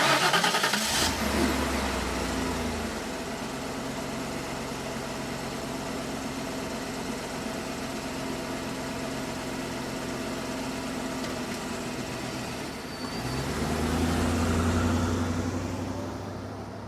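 Car engine cutting in loudly, settling into a steady idle, then revving up once about thirteen seconds in before dropping back and fading out.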